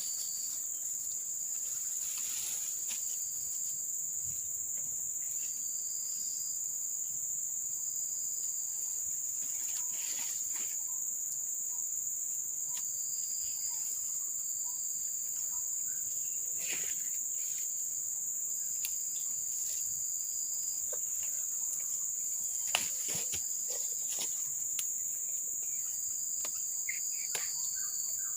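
Insects chirring: a steady high-pitched drone, with a second, slightly lower call that comes and goes in spells of about a second. A few faint clicks and rustles.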